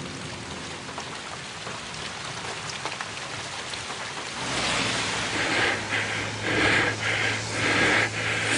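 Heavy tropical rain falling steadily. About halfway through, a louder rushing noise comes in, with a steady low hum and surging swells every half second or so.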